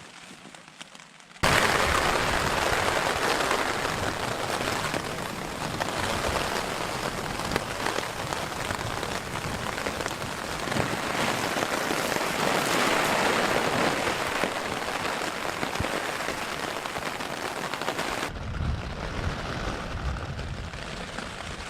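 Rain falling steadily, starting abruptly about a second and a half in; near the end it gives way to a quieter stretch with a low rumble.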